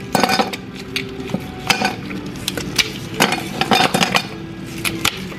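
Large ice cubes popped from an ice cube tray drop into a tall drinking glass, knocking and clinking against the glass and each other about a dozen times, in uneven bursts.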